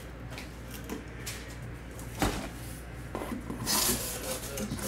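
A box and its packaging being handled, with scraping and rubbing and a couple of soft knocks, turning into louder rustling near the end.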